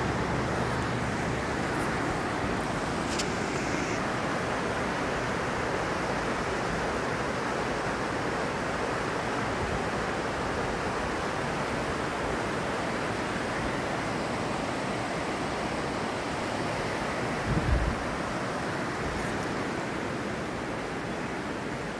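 Steady, even rushing of the Niagara River's white-water rapids below the gorge trail. A brief low thump about three-quarters of the way through.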